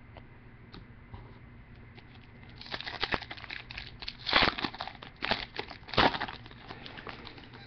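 Crinkling and rustling of a foil trading-card pack wrapper being torn open and handled, starting about two and a half seconds in as a run of irregular crackles.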